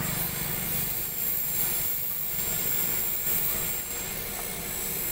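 Steady outdoor rush of wind on the microphone over a low engine and traffic rumble, with no distinct events.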